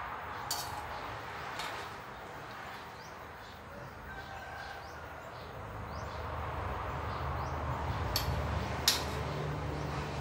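Metal kitchen tongs clicking and clacking a few times as boiled vegetables are lifted from a wok onto a plate, the sharpest clack near the end. Under it, a low steady rumble from the gas stove and the boiling pot grows louder from about the middle.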